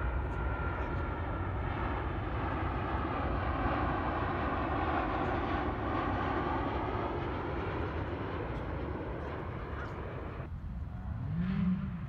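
Aircraft passing overhead: a steady engine drone that swells through the middle with faint, slowly gliding tones, over low wind rumble on the microphone. The drone drops away abruptly about two seconds before the end.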